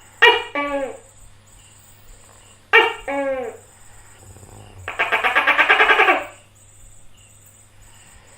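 Gecko calling: two loud two-note calls, each note dropping in pitch, about two and a half seconds apart, then a fast rattling call lasting a little over a second.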